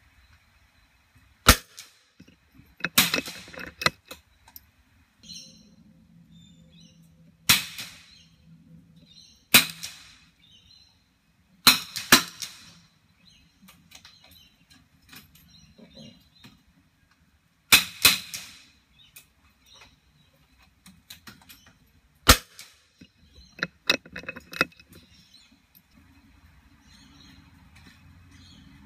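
Sharp cracks of .22 rimfire rifle shots, about a dozen spread through, some following one another within half a second.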